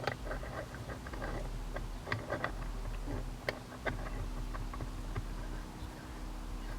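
Scattered light clicks and taps, irregular, as a shift knob is handled and threaded down onto a shifter's adapter.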